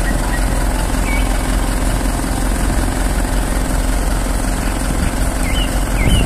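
Truck engine running steadily to drive the hydraulics of a truck-mounted boom lift as it raises the basket, with a constant hum. A few short bird chirps near the end.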